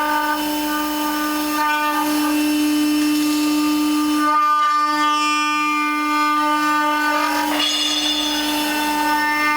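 A 4-axis CNC router's spindle runs at a steady high pitch while its cutter machines wood. The cutting sound shifts about four seconds in and again near eight seconds.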